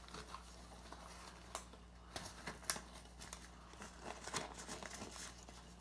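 Faint rustling and scattered small snaps of a blue disposable glove being pulled onto a hand, over a steady low electrical hum.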